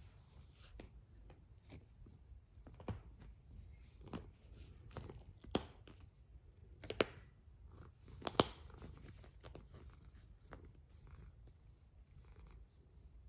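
A sleeping cat snoring softly: a faint low rumble broken by irregular little clicks about once a second, two sharper clicks standing out a little past the middle.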